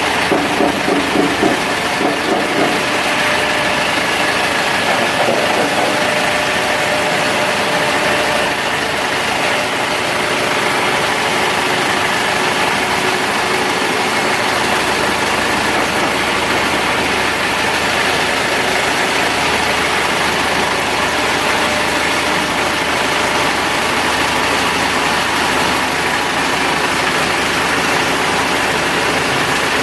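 Diesel generator set running steadily with a loud, even engine noise.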